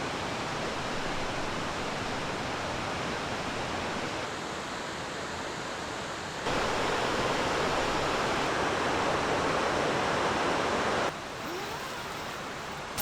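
Mountain stream rushing, a steady hiss of flowing water that jumps louder about six and a half seconds in and drops back abruptly about eleven seconds in.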